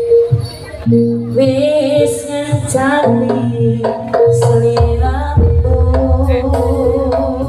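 Live jaranan music from a Javanese gamelan-style ensemble: held melodic notes over drums and gongs, with a singer's gliding voice about one and a half to three seconds in and a deep low note coming in about five seconds in.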